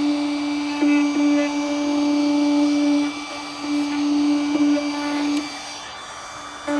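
Handheld trim router running at high speed, a steady high whine as its bearing-guided trim bit shaves the edges of tight slots in the wooden form pieces so they will slot together. The whine gets louder as the bit bites, dips in pitch for an instant a few times, and the motor stops briefly twice, the second time for about a second near the end.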